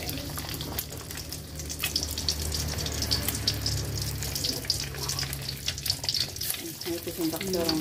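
Beaten egg frying in hot oil in a wok, with steady crackling and spitting. A low steady hum runs underneath.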